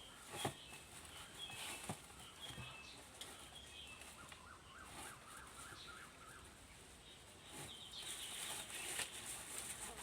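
Faint small-bird chirps with a few light knocks and rustles, and a rapid run of short call notes midway. A high insect buzz comes in near the end.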